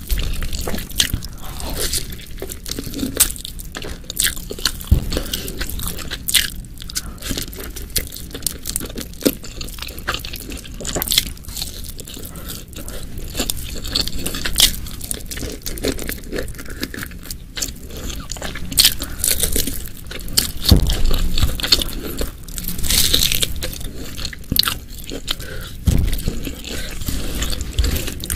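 Close-miked eating sounds: crunching, biting and chewing, with many irregular sharp clicks and mouth noises. The meal is spicy beef ribs, stir-fried water spinach and raw petai beans with rice.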